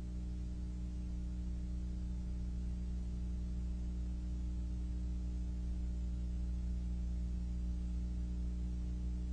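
Steady low hum with no change in pitch or level.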